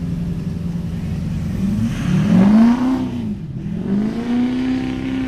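GMC pickup's Duramax turbodiesel engine under hard load pulling the sled. The revs hold, climb about two seconds in, dip sharply about three and a half seconds in, then climb back and hold steady at a higher pitch.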